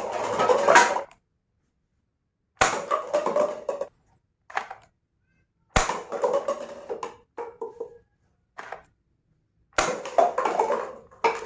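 Plastic toy guns clattering in four short bursts, each starting with a sharp click and lasting about a second, with dead silence between them.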